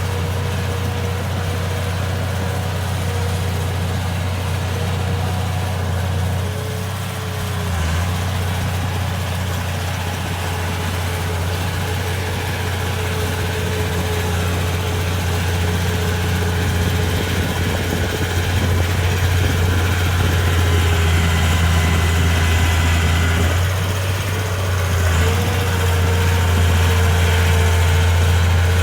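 Bulldozer diesel engine running steadily, with a deep hum and a steady whine over it that dips in pitch briefly twice. The engine grows a little louder in the last third.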